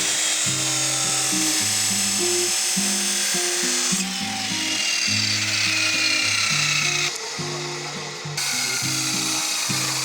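A power tool runs steadily with a high-pitched whine over background guitar music. The tool sound changes abruptly at about four and seven seconds.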